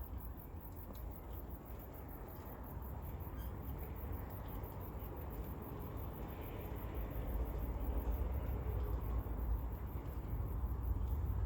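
Suburban outdoor ambience: insects chirping in a fast, even, very high pulse, about four a second, over a steady low rumble that grows louder in the second half.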